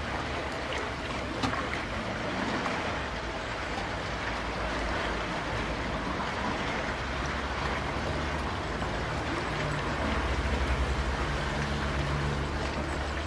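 Motorboat engine running in a lock chamber: a low, steady hum comes in about eight seconds in and grows louder about ten seconds in, over a steady rushing noise.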